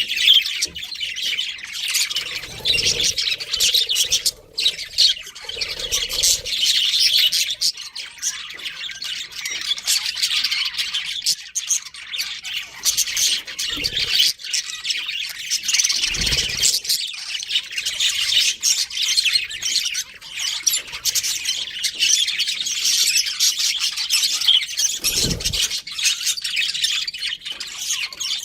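Budgerigars chirping and squawking in continuous, busy chatter, with a few short low thuds now and then.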